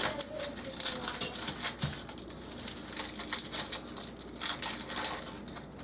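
Dry papery onion skin being peeled off by hand: a run of irregular crisp rustles and crackles.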